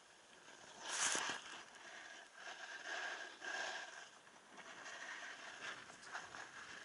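Skis carving on groomed snow: a hissing scrape of the edges that swells and fades with each turn, loudest in a short burst about a second in.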